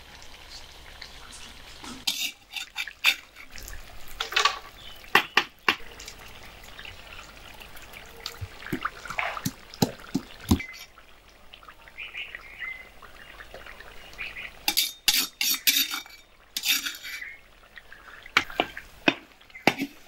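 A long steel ladle clinking and scraping against a large karahi as mutton curry is stirred, in irregular clusters of sharp clicks. Around the middle, a wooden pestle knocks in a stone mortar.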